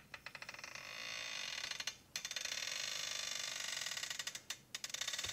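Floor jack being pumped to lift a car on a 3D-printed TPU jack pad: a steady creaking under load, broken briefly about two seconds in and again near the end.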